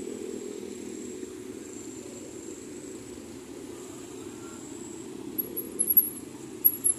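Busy street traffic: a steady rumble of passing cars and motorbikes, with several short, sharp high-pitched chirps near the end that are the loudest sounds.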